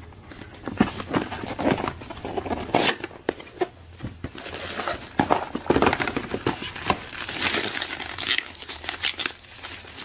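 Thin white packaging wrap crinkling and rustling in the hands as an item is lifted out of a cardboard box and unwrapped, with irregular crackles throughout.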